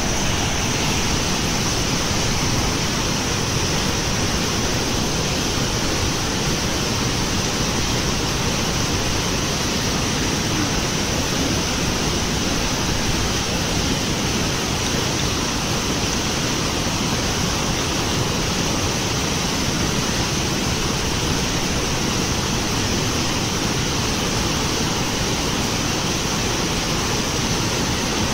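Loud, steady rush of churning floodwater pouring through a concrete dam spillway.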